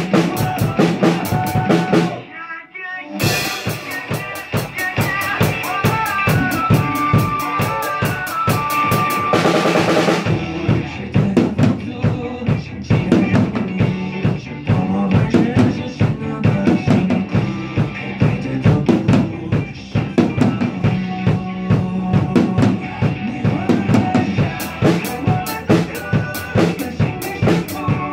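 Acoustic drum kit played along to a pop-rock song: a steady beat of bass drum, snare and cymbals over the song's melody. The drumming drops out briefly about two seconds in, comes back with a cymbal crash, and there is a dense fill around the middle.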